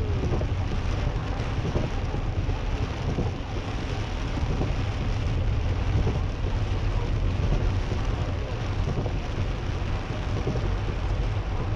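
Steady rain falling on a moving Mercedes-Benz car, with tyre noise on the wet road and a low rumble from the car underneath.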